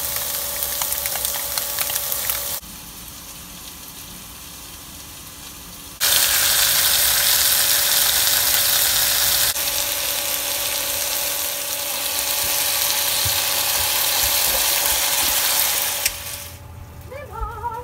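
Food sizzling in a hot frying pan, a steady hiss that jumps in level at a few abrupt cuts. Near the end the sizzle drops away and a high voice is heard singing briefly.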